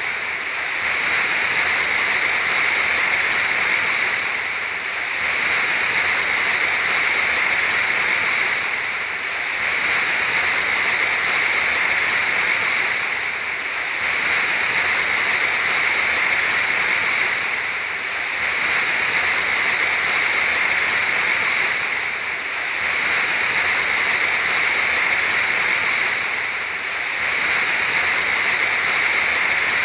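Waterfall rushing: a steady, loud wash of falling water with a slight dip in level about every four and a half seconds.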